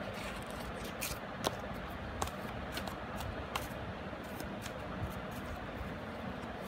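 Tarot cards being shuffled and handled: scattered soft snaps, roughly one every half second to a second, over a steady background noise.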